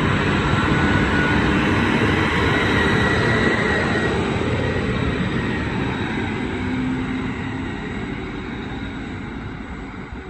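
Endeavour-class diesel railcar pulling out of the station: a steady rumble of engine and wheels that fades over the last few seconds as it moves away.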